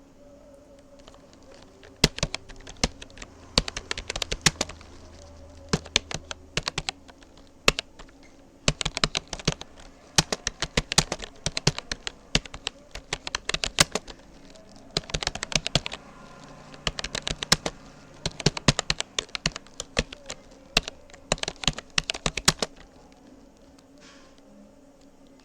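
Typing on a Rapoo computer keyboard: quick runs of key clicks with short pauses between words and phrases, stopping a little before the end.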